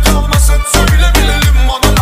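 Background music with a deep, heavy bass beat.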